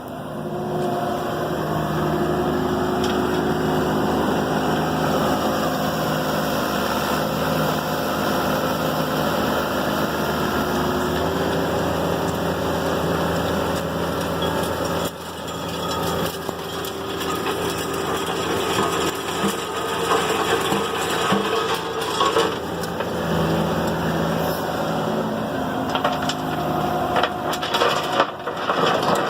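Compact excavator's diesel engine running steadily under hydraulic load while a rotor screening bucket turns, with soil and stones rattling through it. The sound changes abruptly about halfway, and knocking and clatter grow near the end.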